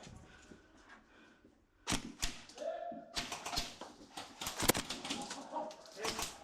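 A few sharp knocks and clicks, the loudest about four and a half seconds in, with a short muffled voice-like sound about two and a half seconds in.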